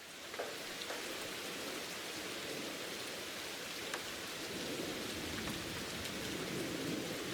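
Steady rain falling, a dense even patter with a few faint separate drop ticks, fading in at the start.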